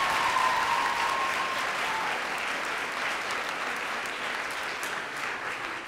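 Audience applauding, fading off towards the end.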